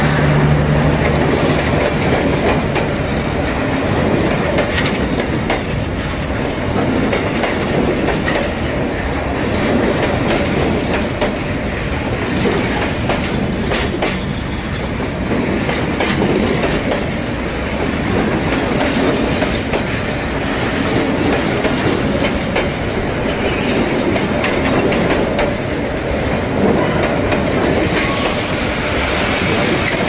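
A train rolling past close by: a steady rumble of wheels on rails with irregular clicks over the rail joints. A brief high squeal comes in near the end.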